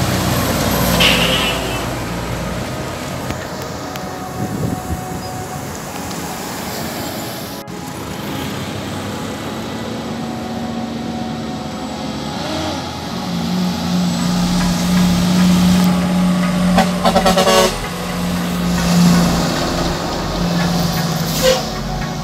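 Heavy diesel tractor-trailers driving past with a steady low engine drone. A brief rapid rattling burst comes a few seconds before the end.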